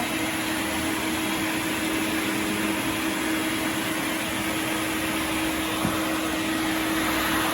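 Sirena water-filter vacuum cleaner running steadily: an even motor whir and airflow hiss with a steady low hum.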